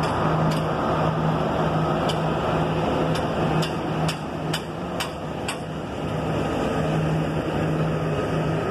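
Narrow-gauge ZDM-class diesel locomotive idling with a steady low hum. A run of about eight sharp knocks sounds over the first five and a half seconds.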